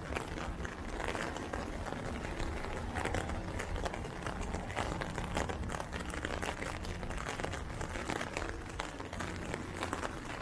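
Heavy rain falling steadily: an even hiss dotted with many small, irregular ticks of drops landing close by.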